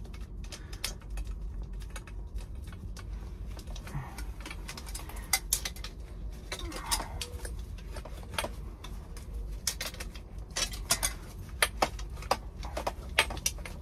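Irregular metallic clinks and taps of copper pipe, fittings and hand tools being handled during a copper water-line repair, with the louder, sharper clinks coming in the second half.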